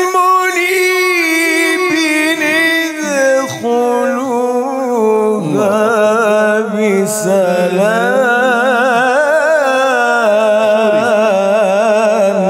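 A man's solo melodic Quran recitation: one voice sustaining long ornamented notes with a quick wavering vibrato. A first phrase drifts down in pitch; about five seconds in a new, lower phrase begins, 'udkhuluha bi-salam' (Surah Qaf 50:34), held and embellished at length.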